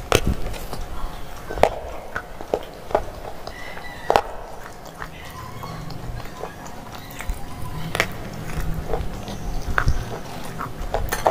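Crunchy biting and chewing of a hard, chalky slate bar: a series of sharp crunches, loudest near the start and about four seconds in, with softer chewing in between.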